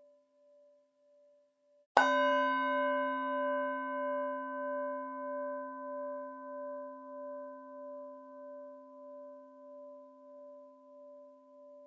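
Buddhist bell struck once about two seconds in, ringing on with a slow, pulsing decay. Before the strike, the fading tail of an earlier strike can be heard.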